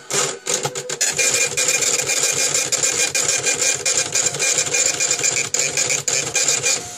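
A small machine chattering rapidly: a few separate clicks at first, then a dense, steady clatter from about a second in, with a thin steady whine running through it.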